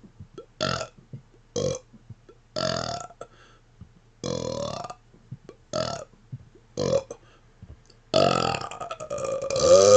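A man burping: six short burps spaced about a second apart, then a long burp that starts about eight seconds in, grows louder and wavers in pitch.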